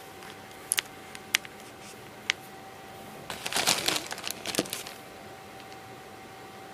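Plastic pony beads clicking against each other as the peyote-stitch beadwork is handled: a few separate sharp clicks, then a second and a half of denser clicking and rustling about three and a half seconds in.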